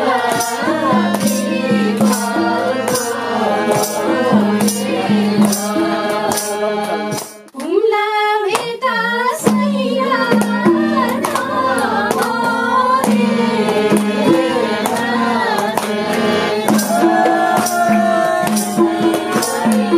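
Nepali folk song playing, with a singing voice over percussion and jingles keeping a steady beat. The music drops out briefly about seven and a half seconds in and then carries on.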